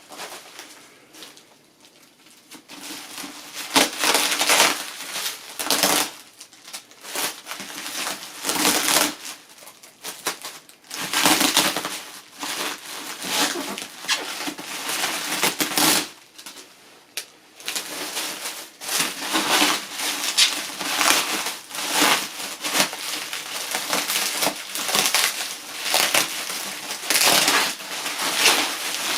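Packing material being pulled off, torn and crumpled by hand: an irregular crinkling and crackling that goes on and off, with a short lull about sixteen seconds in.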